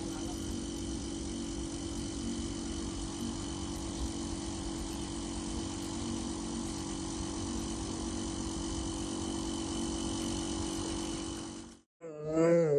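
A steady machine-like hum with a constant low tone and a fainter high tone. Near the end it cuts off abruptly and a high, wavering whimpering cry begins.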